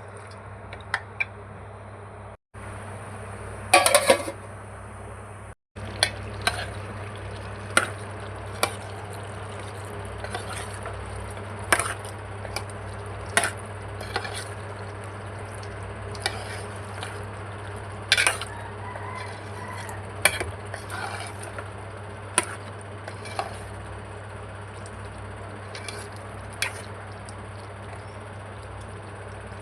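Chicken and yellow-cucumber (dosakaya) curry sizzling in a pan while it is stirred. A spoon scrapes and knocks against the pan in sharp irregular clicks every second or two, over a steady low hum.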